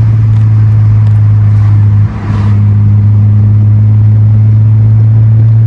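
Mitsubishi Eclipse with an aftermarket Invidia N1 cat-back exhaust, droning steadily while driving. It is a deep, even note with a brief dip in level about two seconds in.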